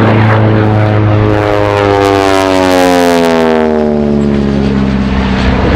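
Gee Bee R-2 replica racing plane's radial engine and propeller passing by under power. Its steady drone drops sharply in pitch two to three seconds in as the plane goes past, with a rush of propeller noise at the moment of passing.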